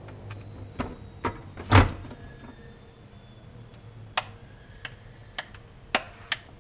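About a dozen scattered sharp clicks and knocks, with one louder thud just under two seconds in, over a faint low steady hum: hard objects being handled and set down.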